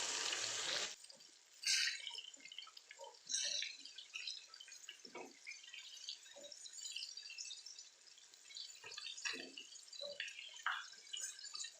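Fish pieces frying in hot oil in a pan, left undisturbed: a loud steady hiss cuts off about a second in, leaving scattered pops and crackles of the oil.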